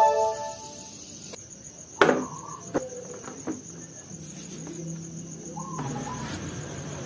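Insects chirring steadily in the background. A bell-like chime fades out in the first second, and a sharp knock sounds about two seconds in, followed by light handling noises.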